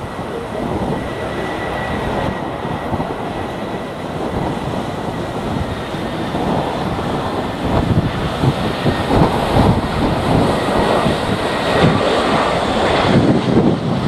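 Strong gusty wind buffeting the microphone over the steady whine and rumble of an Airbus A319 airliner's jet engines on final approach. The engine sound grows louder in the second half as the jet comes closer.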